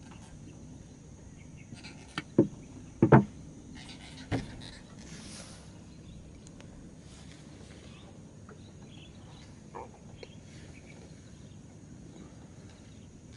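Several sharp knocks and thumps, bunched between about two and four and a half seconds in, the loudest about three seconds in, with one more, fainter, near ten seconds. Under them runs a faint, steady, high insect buzz.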